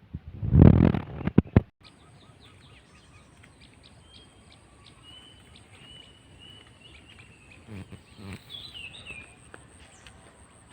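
Small birds chirping and twittering, with short high calls and a brief falling call about nine seconds in. A loud rumbling thump with a few sharp clicks fills the first second and a half, and a faint steady high whine runs beneath the birdsong after it.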